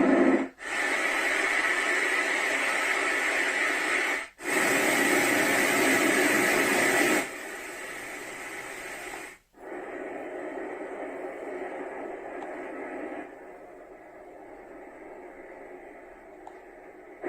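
Momcozy DreamSync baby sound machine playing steady white-noise-style soothing sounds, switching to a different sound with a short break three times. The volume steps down twice, about halfway through and again later.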